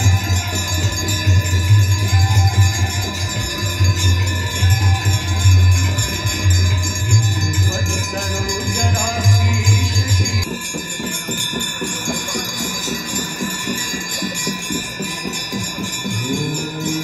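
Ganga Aarti ceremony: many brass hand bells ringing continuously over devotional aarti music. A heavy low pulsing sound runs under it and stops suddenly about ten seconds in.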